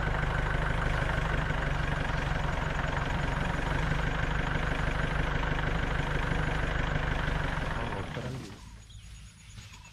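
Safari jeep's engine running steadily, then falling away about eight seconds in, leaving a quiet outdoor background with a few faint bird calls.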